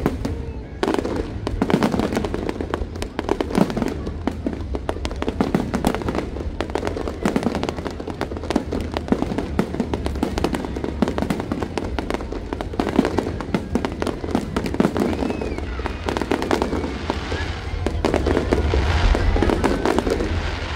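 Aerial fireworks shells bursting in quick succession, a dense run of sharp bangs and pops over a low rumble, with music playing underneath.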